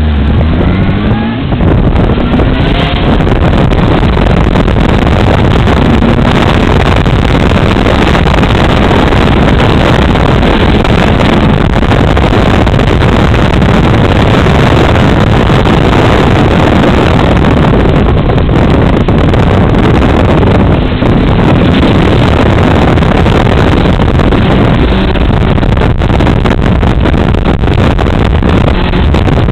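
Motorcycle on the move: loud wind rush over the microphone mixed with the engine running, its pitch rising in the first few seconds as it accelerates.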